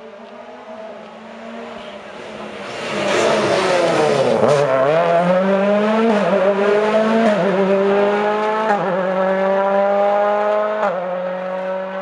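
Ford Fiesta rally car approaching and passing close at full throttle, its engine pitch dropping as it goes by about four seconds in. It then accelerates away up the road through four quick upshifts, each a rising engine note cut by a short drop, fading toward the end.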